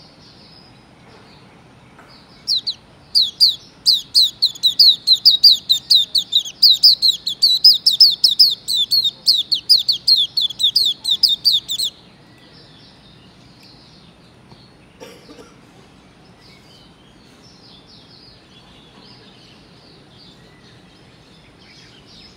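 Hume's white-eye (Zosterops auriventer) singing a fast run of sharp, falling notes, about four a second. The run starts a couple of seconds in, lasts about nine seconds and stops abruptly. This is a young bird's song that is still not smooth, with faint chirping before and after.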